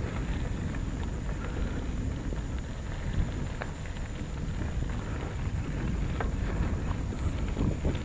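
Bicycle tyres rolling over a dirt track, with a steady low rumble of wind on the action camera's microphone and scattered small ticks and crunches from gravel and the bike.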